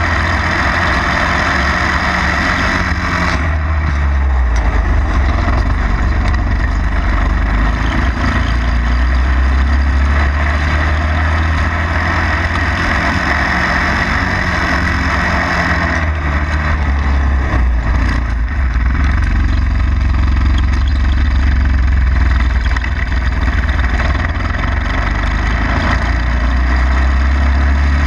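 Go-kart engine running close to the microphone as the kart is driven, its note easing off and climbing again twice, about three seconds in and again around sixteen to nineteen seconds in, as the kart slows and picks up speed.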